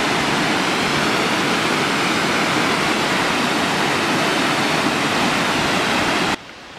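A waterfall cascading over rock ledges into a pool makes a steady, loud rush of falling water. The rush stops abruptly near the end.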